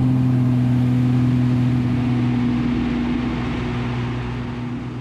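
Piston engine and propeller of a single-seat aerobatic plane droning steadily in flight, heard inside the cockpit, slowly fading toward the end.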